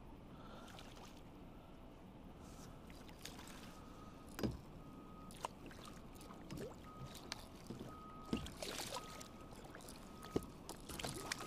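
A hooked bass splashing and thrashing at the surface beside a kayak as it is reeled in, with a string of sharp splashes from a few seconds in. A short, even-pitched squeak repeats about twice a second through the second half.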